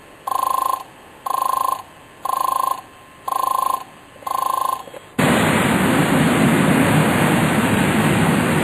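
Railway level-crossing warning signal beeping about once a second, five even electronic tones, then a sudden switch about five seconds in to a steady loud rushing noise.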